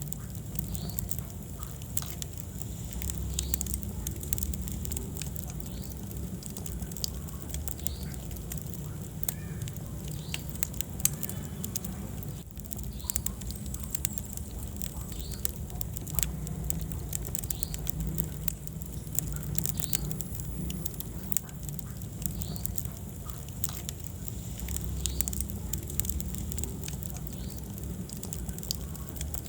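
Wood fire burning in a fireplace: a steady low rumble of flames with frequent irregular crackles and pops, one sharper pop about eleven seconds in.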